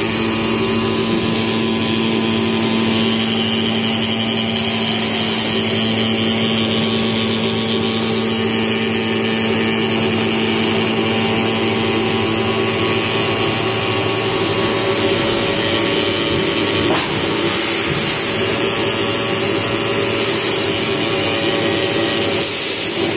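CNC gasket-cutting table running steadily as its head cuts rings in a graphite composite sheet, a dense mechanical whir with a steady hum. One short click about three quarters of the way through.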